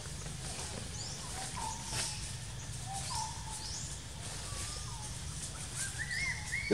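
Several forest birds calling: short, high, downward-sweeping chirps and lower whistled notes, with a run of repeated arching notes near the end, over a steady low background hum. A brief knock at the very end.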